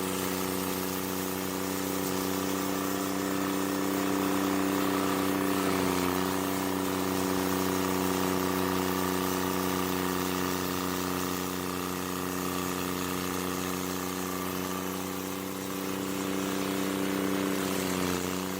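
Stump grinder engine running steadily at working speed, with its pitch dipping briefly twice: about six seconds in and near the end.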